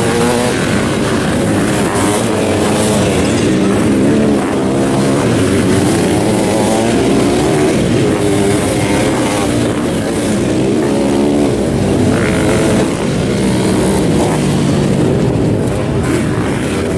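Several sidecar motocross outfits racing at once, their motorcycle engines overlapping and revving up and down in pitch.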